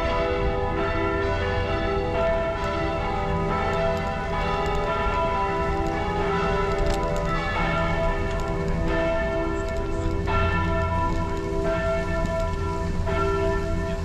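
Church bells pealing, many bells' tones overlapping and restruck continuously.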